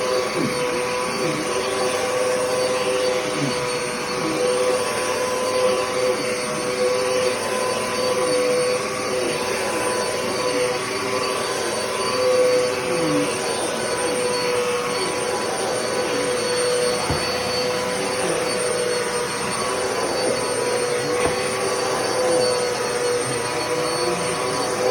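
Hoover WindTunnel upright vacuum cleaner running steadily: a constant motor whine over a rush of airflow, wavering slightly in pitch and loudness.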